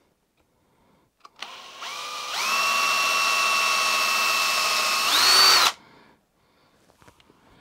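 Cordless drill boring a pilot hole into wood for a hinge screw: the motor starts slowly, winds up to a steady whine, rises in pitch once more near the end and then stops.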